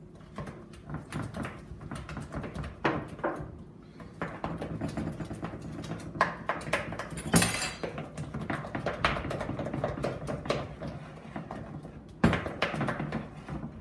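Wooden spoon beating sponge-cake mixture of creamed butter, sugar and egg in a large ceramic mixing bowl: quick, irregular knocks and scrapes of the spoon against the bowl, with one sharper knock about halfway.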